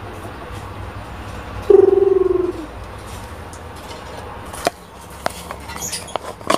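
Asian pied starling giving one loud, low call that falls slightly in pitch, lasting under a second, about two seconds in. A few sharp clicks follow near the end.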